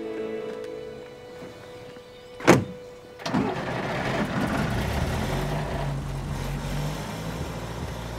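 Soft music fading under, then one loud sharp bang about two and a half seconds in, followed by a car engine coming on suddenly and running steadily with a low rumble.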